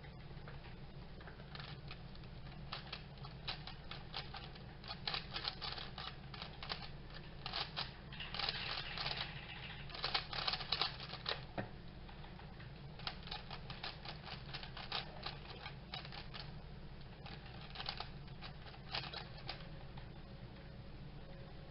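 Weilong V1 3x3 speedcube being turned fast in a timed solve: rapid clicking clatter of the plastic layers, loudest in the middle of the solve, which stops about halfway through. After a short lull the clicking picks up again more sparsely as the cube is turned once more, over a steady low hum.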